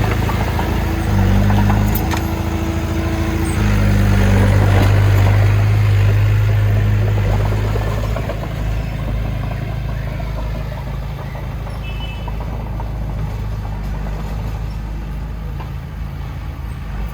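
Heavy diesel engine of an earthmoving machine running hard, its pitch stepping up and down a few times in the first seconds. About halfway through it eases off to a quieter, steady rumble.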